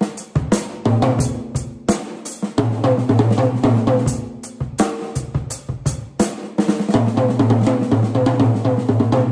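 Acoustic drum kit played fast, with rapid runs of strokes around the toms over the bass drum. The toms are single-headed (bottomless) 13-, 14- and 16-inch drums freshly fitted with Remo Skyntone heads, and their low tones ring on between hits. The snare is played with its snare wires off.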